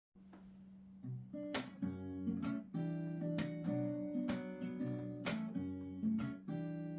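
Acoustic guitar strumming chords as a song intro: it starts faintly and comes in fully about a second in, with sharp strums every half second or so.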